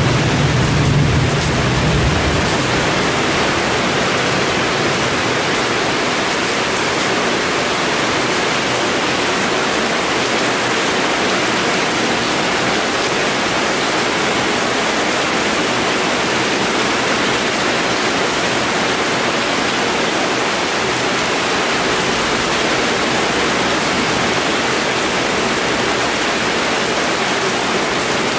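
Heavy tropical rain pouring down in a steady, dense hiss. A low rumble of thunder dies away about two seconds in.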